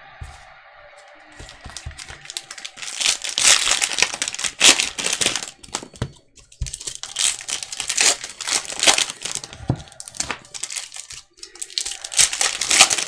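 Foil trading-card pack wrapper crinkling as it is handled and torn open by hand, with irregular crackles that start about a second in and peak several times.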